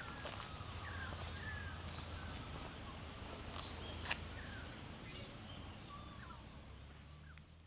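Several birds calling, many short sliding chirps, over a steady low rumble; the sound fades out near the end.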